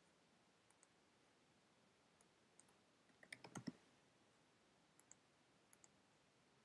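Faint computer mouse clicks, each a quick press-and-release pair, every second or so, with a short burst of keyboard typing about three seconds in, the loudest part.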